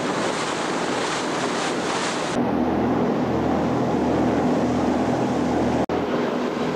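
Wind and sea hiss on the microphone aboard a moving boat. About two seconds in it switches abruptly to a boat engine's steady low drone, which holds to the end except for a brief dropout near the end.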